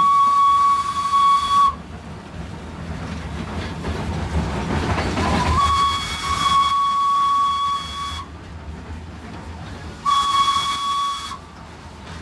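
Steam whistle of WP class 4-6-2 steam locomotive 7161, heard from inside the cab, worked by its chain and sounding three blasts: a short one, a longer one of about two and a half seconds, and another short one near the end. The running noise of the moving locomotive fills the gaps between blasts.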